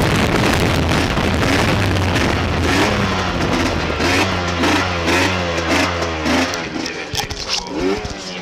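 Onboard sound of a 125 cc road-racing motorcycle at speed, with heavy wind rush on the microphone over the engine note. Partway through, the engine pitch rises and falls repeatedly. Near the end the engine and wind drop away and there are a few sharp clicks.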